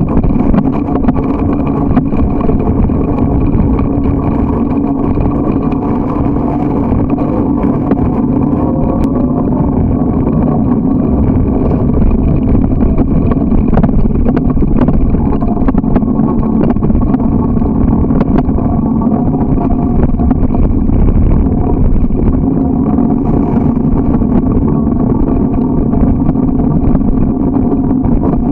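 Loud, steady rumble of wind and rolling noise on the microphone of a moving bicycle, unbroken throughout.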